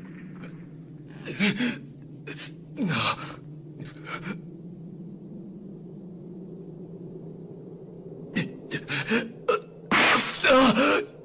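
A man's pained gasps and strained grunts in short bursts, coming thicker near the end and ending in a longer, loud groan of effort, over a low steady drone.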